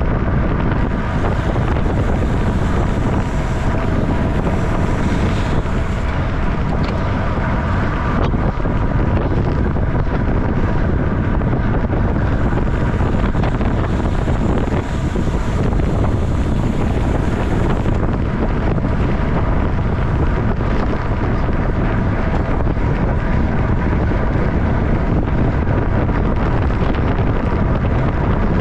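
Wind rushing over the microphone of a camera on a racing bicycle moving at about 30 mph: a loud, steady rumble.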